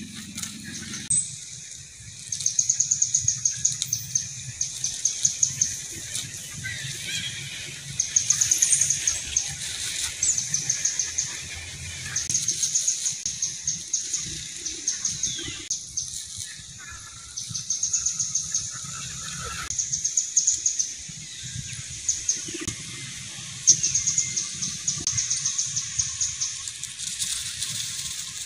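Rapid high-pitched chirping in bursts of one to two seconds, about a dozen chirps a second, repeating every couple of seconds, over a faint low rustle.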